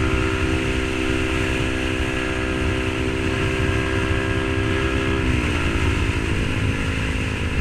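Yamaha R15 V3 single-cylinder engine running through an SC Project exhaust, holding steady revs while riding; about five seconds in the pitch drops as the throttle eases off.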